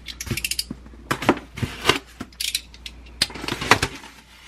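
A taped styrofoam box being opened by hand: tape pulling away and the foam lid rubbing and squeaking as it is prised off, in a run of short crackles, clicks and scrapes.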